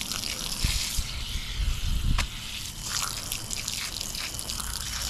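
Water from a garden hose nozzle spraying onto a bait-tank filter pad lying on grass, a steady hiss and splatter as the dirt is rinsed out of the pad.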